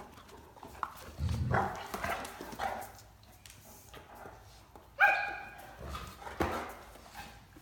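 Great Danes wrestling in play: scuffling and low sounds, then one sharp, high bark about five seconds in, the loudest sound, followed by a couple of knocks.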